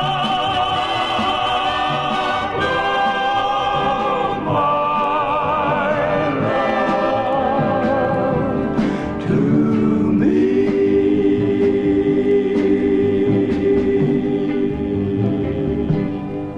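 Music: a male vocal quartet with orchestral backing singing the drawn-out ending of a ballad, voices wavering in vibrato through several chord changes, then holding one long final chord from about ten seconds in until it ends near the close.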